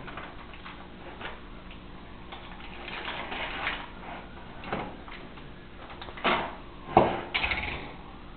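Scattered light clicks and clacks of small toy cars being handled in a clear plastic packaging tray and set down on a wooden table, with two louder knocks near the end.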